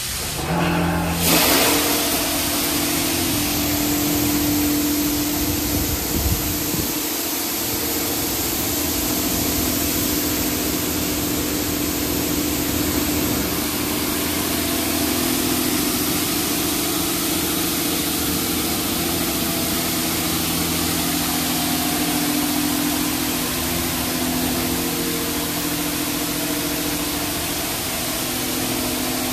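NCS/Ryko Radius touch-free car wash spraying high-pressure water jets from its overhead gantry arm onto a foam-covered car: a steady loud hiss of spray over a steady machine hum, surging about a second in.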